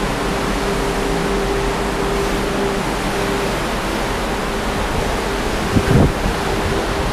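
Strong wind of about 50 knots rushing past a ship's balcony and buffeting the microphone, mixed with the sea below, as a steady hiss. A faint steady tone runs under it, and a couple of low thumps come about six seconds in.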